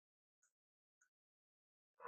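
Near silence: a gap between sound effects.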